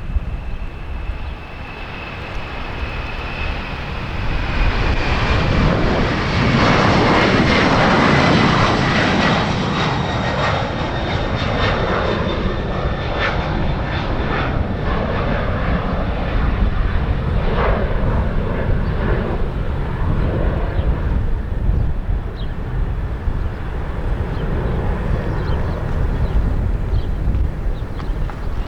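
Boeing 767 twin jet engines at takeoff power as the airliner goes past: a high whine slowly falling in pitch while the roar builds to its loudest about eight seconds in, then a lingering rumble. Strong wind buffets the microphone throughout.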